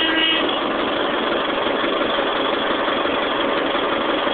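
Caterpillar D5H XL bulldozer's diesel engine idling steadily just after start-up.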